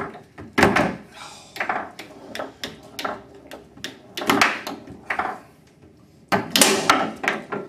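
Foosball game in play: irregular sharp clacks and knocks of the hard ball being struck by the plastic players and the rods banging in the table, with a louder clatter near the end.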